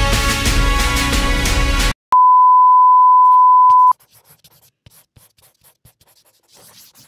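Upbeat background music stops about two seconds in and a loud, steady, single-pitch electronic beep like a censor bleep sounds for just under two seconds, then cuts off. Faint scratchy ticks follow.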